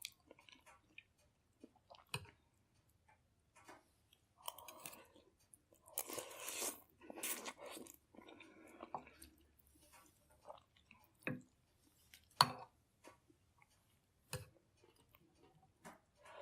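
A person eating chicken soup: chewing and mouth noises, with a few sharp clicks of a spoon against the bowl, the loudest about twelve seconds in. Longer noisy stretches come around six to eight seconds in.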